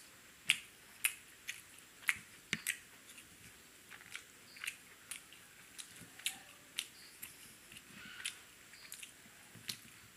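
A person chewing paratha and chicken curry with the mouth close to the microphone: irregular sharp mouth clicks and smacks, about one or two a second.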